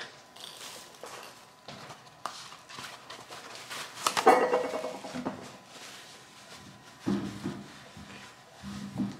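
Scattered knocks and clicks of a plastic personal-blender cup and lid being handled on a countertop, with a short pitched cry about four seconds in, the loudest sound.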